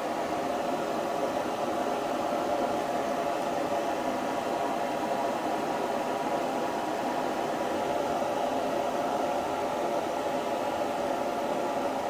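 A steady mechanical whir with a hum in it, unchanging throughout, like a fan or blower running.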